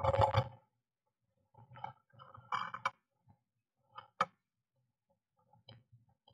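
Blue tit moving about inside a wooden nest box: a loud burst of scrabbling at the start as it comes down with a feather, then short bouts of rustling and scratching in the moss and wool as it settles into the nest cup, with a sharp tap about four seconds in.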